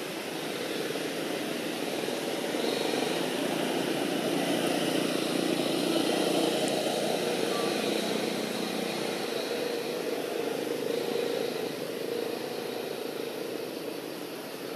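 A motor vehicle's engine running as it passes, the sound swelling to a peak about six seconds in and then fading away.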